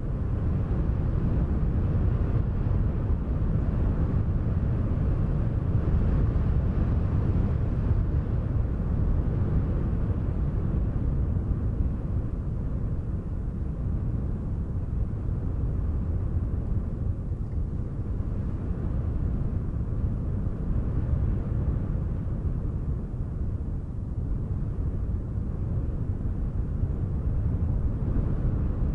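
Wind blowing: a steady low rumbling rush that slowly swells and eases.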